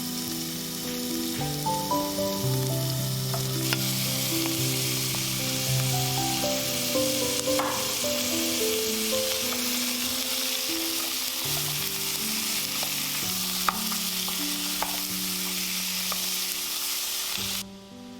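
Food sizzling as it fries in a pan, with a few sharp clicks of a utensil being stirred against it. Gentle background music plays throughout. The sizzling cuts off suddenly near the end.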